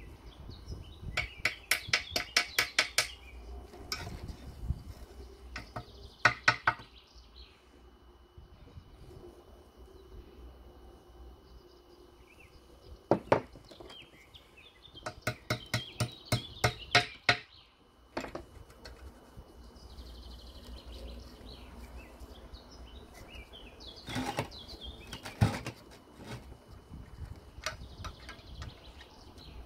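Ratchet wrench clicking in quick even runs, about six clicks a second, as a rusted bolt holding a stove leg is turned, with a few single metal knocks between the runs.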